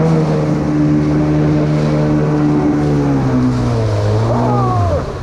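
Outboard motor of a water-jet inflatable boat running under steady load, over the rush of river rapids. Its pitch steps down a little past halfway and falls away near the end as the throttle is eased.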